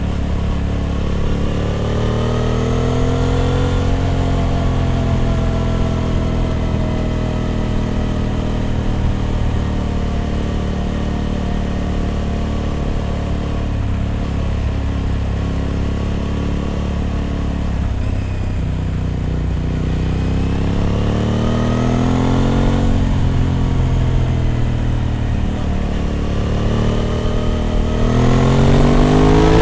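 Aprilia RS 660 Extrema's parallel-twin engine with an SC Project exhaust, heard on board while riding. It picks up revs at first, then runs at a steady road speed with the pitch slowly easing. It revs up again and drops sharply at a gear change about 23 seconds in, then pulls up through the revs once more near the end.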